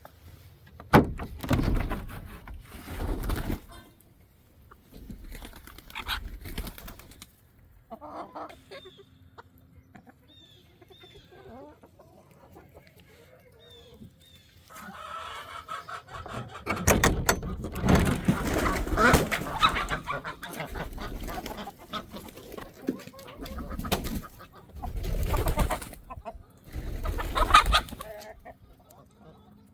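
Chickens clucking and calling in several loud bursts, with quieter stretches between.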